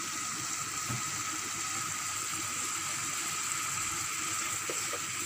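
Chicken curry sizzling and bubbling steadily in a metal pot as it braises in a little water at the koshano stage.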